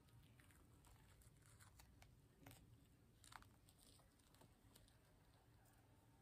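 Faint crackling and tearing of a dried holographic peel-off face mask being pulled off the skin: a scatter of small ticks, the sharpest about three and a half seconds in.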